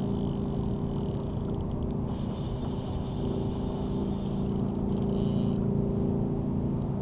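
Steady low hum of a running motor, with a higher hiss that comes and goes several times.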